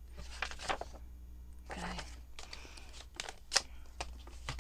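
Paper being cut and handled: a series of sharp clicks with soft rustling between them, the loudest click near the end.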